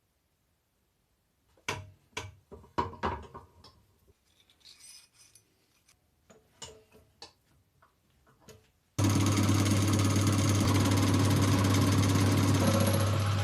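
Tools being handled in a series of knocks and clicks, then a power tool's motor switching on suddenly about nine seconds in and running steadily with a strong low hum.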